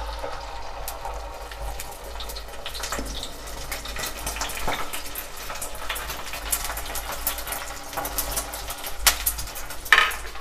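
Beaten egg frying in hot oil in a clay cazuela over a wood fire: a steady crackling sizzle, with two sharper clinks near the end.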